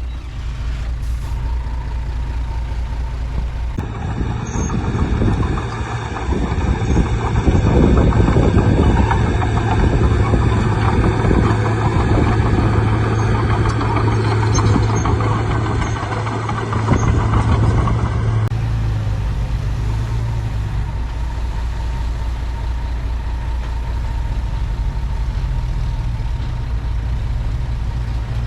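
Bulldozer's diesel engine running steadily with a deep hum, louder and rougher for a long stretch from about 4 to 18 seconds in, then settling back.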